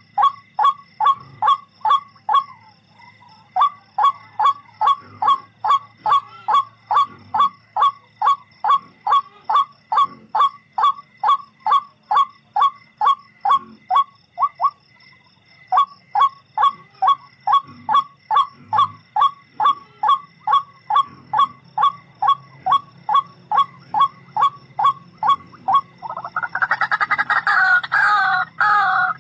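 A tikling, a Philippine rail, calling in a long, fast series of short honking notes, about three a second, each dipping slightly in pitch, with two brief breaks. Near the end a louder, fuller bird call with several tones takes over.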